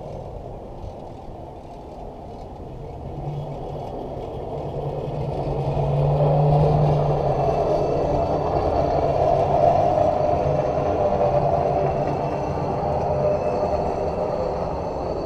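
Hi-rail pickup truck running along the rails on its road tyres and rail guide wheels, with a steady low hum. It grows louder as it passes, loudest about halfway through, then fades.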